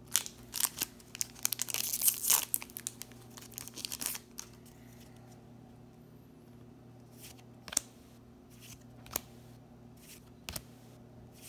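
Foil trading-card booster pack being torn open and crinkled for about the first four seconds, then single cards being slid and flicked in the hand with a few sharp snaps. A faint low steady hum runs underneath.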